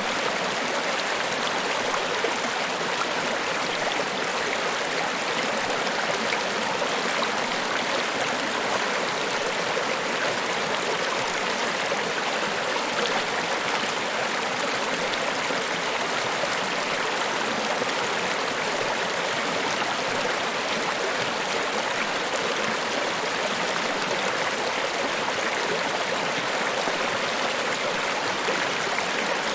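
Waterfall: a steady, unbroken rush of falling water, with most of the sound in the middle and upper range and little low rumble.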